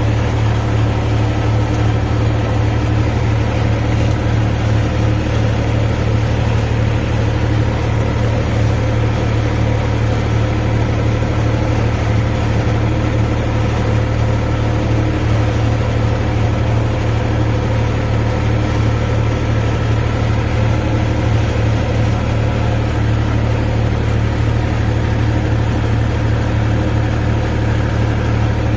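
Tractor engine running at a steady speed, a deep even drone that holds the same pitch throughout with no revving.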